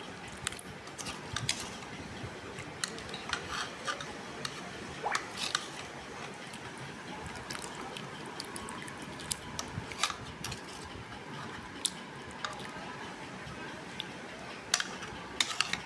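Cooking sounds: a steady frying hiss with frequent sharp, irregular clicks and taps of a metal utensil against the cooking surface, typical of liver being fried and turned.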